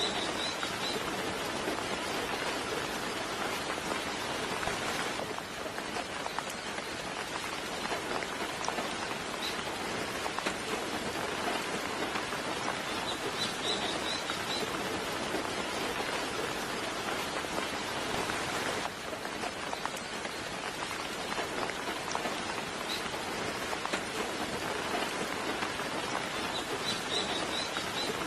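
Steady soft rain falling. Brief clusters of high bird chirps come three times: at the start, about halfway, and near the end.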